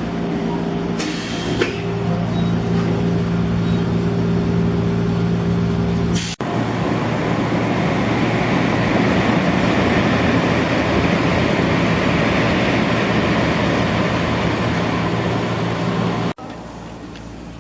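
Gakunan Railway electric train: a steady low multi-tone hum for about six seconds, then, after an abrupt cut, about ten seconds of loud even rushing noise, then another abrupt cut back to a quieter hum.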